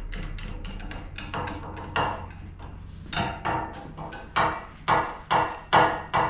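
A series of hammer taps, faint at first, then sharper and evenly spaced at about two a second from about three seconds in.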